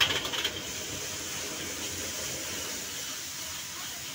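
A few sharp metal clanks of a spatula against a wok, then a steady hiss of frying in the wok over a high gas flame.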